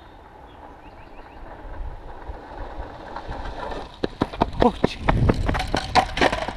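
Longboard wheels rolling on asphalt with a rumbling rush that grows louder. About four seconds in, a quick run of sharp slaps and clatters follows as the rider comes off the board and runs it out on foot, with a short shout among them.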